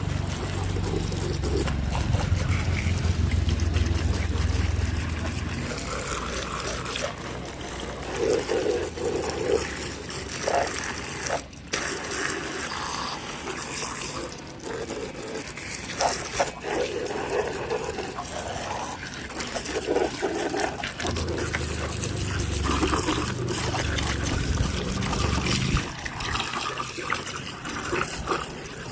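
Running water splashing and trickling over muddy toy trucks as they are washed clean. A low hum sounds during the first few seconds and again for a few seconds later on.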